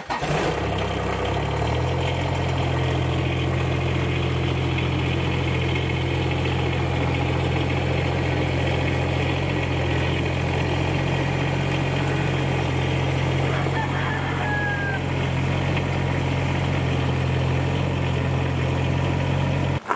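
Compact tractor engine running steadily just after being started; its note shifts over the first two seconds, then holds even.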